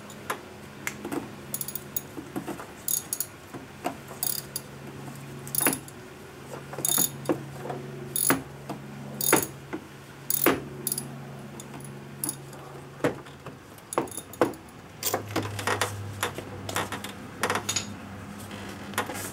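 Irregular metallic clinks and clicks of a socket wrench and spark plug socket working a spark plug loose from a Chinese scooter's engine, with a steady low hum underneath.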